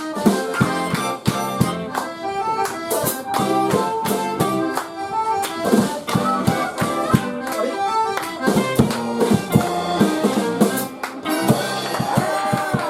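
Live band music led by accordion over guitar, harmonica, bass and a drum kit keeping a steady beat. Just before the end a note glides down in pitch.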